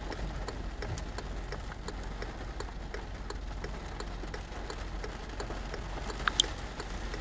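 Heavy rain pattering on a car's roof and windshield, heard from inside the stopped car: a steady hiss of many small drop ticks over a low hum, with one sharper tap about six seconds in.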